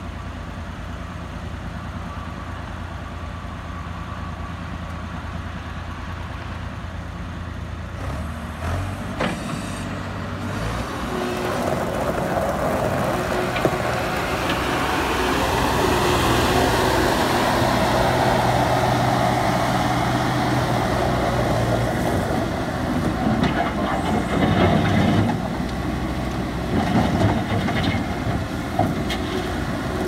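John Deere 260 skid steer's diesel engine idling steadily, then revving up about eight seconds in as the machine drives off and moves around. It runs louder while working, with a few knocks near the end.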